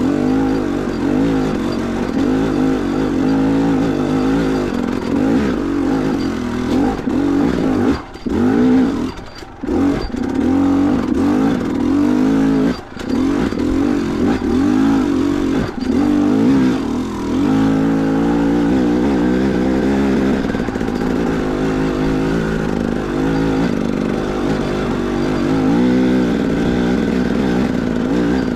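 KTM EXC 300 two-stroke enduro bike engine revving up and down under load on a rough uphill climb, with a few short drops where the throttle is chopped in the first half.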